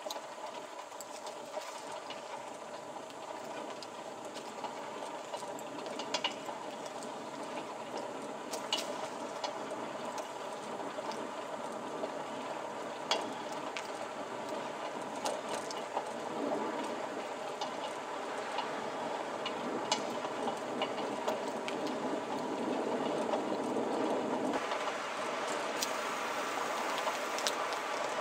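A steady drone of several held tones, with scattered sharp clicks and ticks; it grows slowly louder and changes character near the end.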